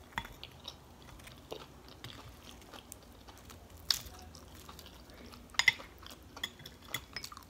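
Close-up chewing and mouth sounds of someone eating fried fish, with scattered short clicks and smacks; the sharpest come about four seconds in and just before six seconds.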